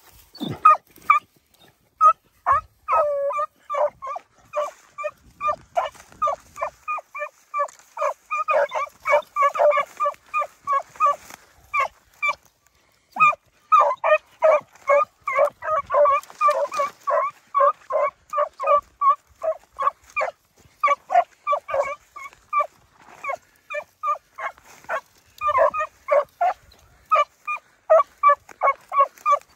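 Beagle hounds barking in quick short chops, several a second, while trailing a rabbit's scent, with a brief pause about twelve seconds in.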